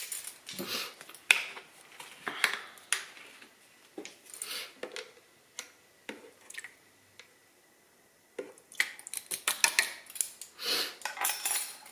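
Scattered clicks and light clinks of metal measuring spoons and a small vanilla extract bottle being handled over a blender jar, with a quiet pause a little past halfway and a busier run of clattering near the end.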